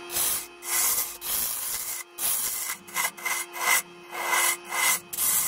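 Turning tool cutting the inside of a sapele bowl spinning on a wood lathe: a quick run of scraping cuts, about two a second, as shavings come off, over the steady hum of the lathe.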